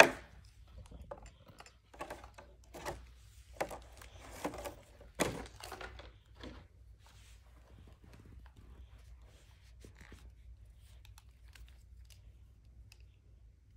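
Handling noise from a plastic dinosaur action figure and its packaging: scattered small clicks and crinkles for the first six or seven seconds, then only a faint low hum.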